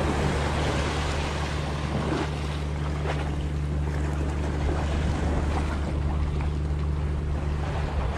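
Steady low drone of a boat engine over the water, with wind on the microphone and the sea washing against the shore rocks.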